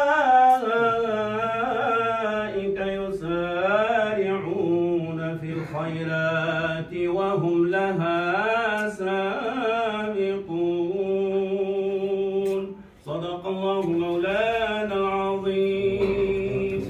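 Unaccompanied male religious chant in a melismatic style: long held notes with ornamented runs, and a brief break about three-quarters of the way through.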